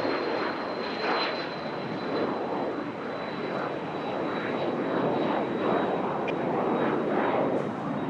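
Jet aircraft's turbofan engines running with a loud, surging rush and a thin high whine that sinks slightly in pitch.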